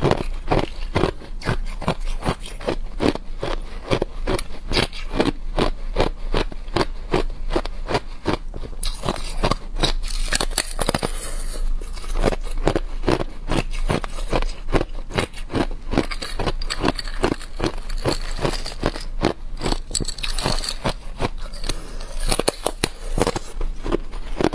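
Thin sheets of clear ice crackling and cracking close to the microphone as they are lifted out of water and handled, a dense, continuous run of small sharp cracks.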